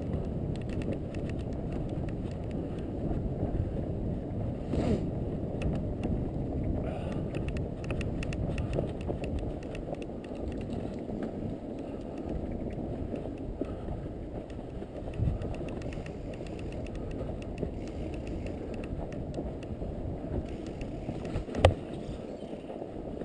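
Fat bike rolling over snow: a steady low rumble from the wide tyres and wind on the microphone, with many small clicks and crackles and one sharp knock near the end.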